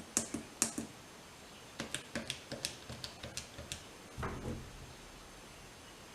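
A run of sharp mechanical clicks, a few at first and then about a dozen in quick, uneven succession, followed by a duller thump about four seconds in.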